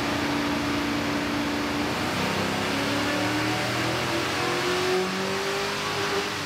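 Chevy Silverado's stock 4.8-litre LS V8 at wide-open throttle on a chassis dyno, running the factory ignition map with factory knock control. It holds steady for about two seconds, then rises steadily in pitch as it revs toward 6,000 rpm, and drops off right at the end as the pull finishes.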